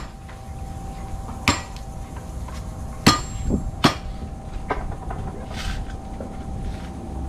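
A blade chopping into a fresh coconut to open it: three sharp strikes, the last two close together.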